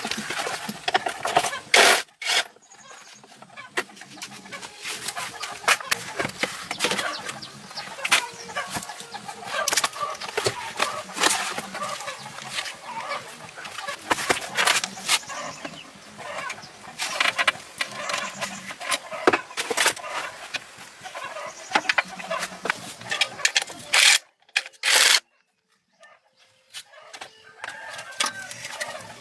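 Irregular sharp knocks and clicks over a busy background, broken by a short silent gap about 25 seconds in.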